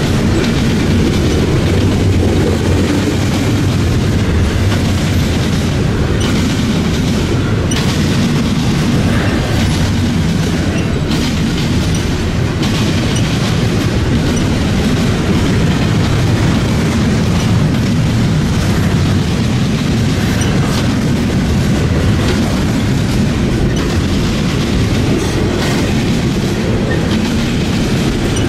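Double-stack container well cars of a freight train rolling past, their steel wheels running on the rails in a loud, steady rumble.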